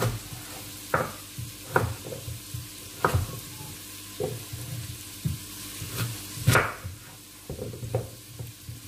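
Kitchen knife cutting peeled potatoes into cubes on a wooden cutting board: irregular sharp knocks of the blade and potato pieces against the board, roughly one every second or so, over a faint steady hum.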